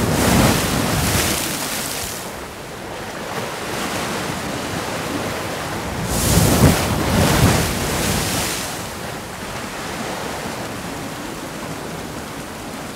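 Sea waves breaking on a rocky shore: a steady wash of surf with two louder breakers, one at the start and another about six seconds in.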